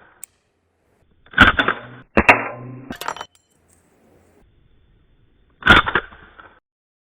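Umarex Beretta M9A3 CO2 BB pistol fired in semi-auto, one shot per trigger pull, each with the snap of its blowback slide. Sharp shots come about a second in, again a moment later, and once more near the end, with pauses between.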